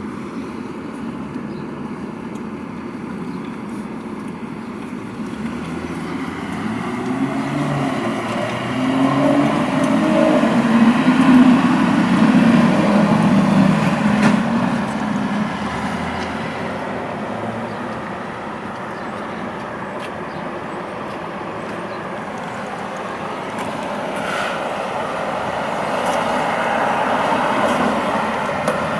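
City street traffic: motor vehicles running by, with one louder engine passing near the middle, swelling and then fading away.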